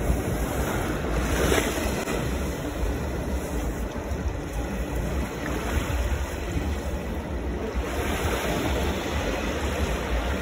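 Atlantic Ocean surf washing onto a sandy beach in a continuous rush, with wind rumbling on the microphone.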